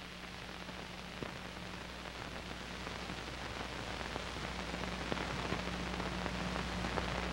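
Steady hiss and crackle of an old TV recording's soundtrack with a low hum under it, a few faint clicks, slowly growing louder. There is no programme sound.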